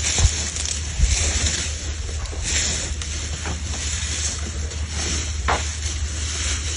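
Wind buffeting the microphone over a steady low engine hum, with a couple of thumps in the first second.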